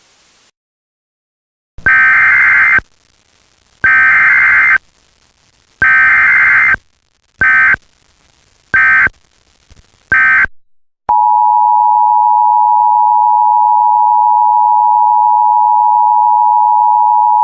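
Emergency Alert System tones. First come three buzzy digital data bursts of about a second each, then three shorter bursts. About eleven seconds in, the steady two-tone EAS attention signal starts and holds.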